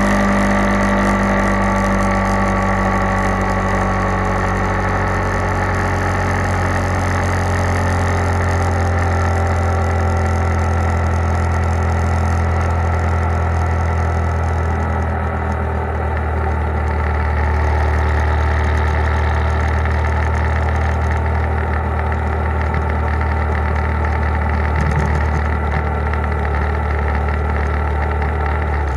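Motorcycle engine running while riding, with wind and road noise. Its pitch eases down over the first several seconds, then holds steady.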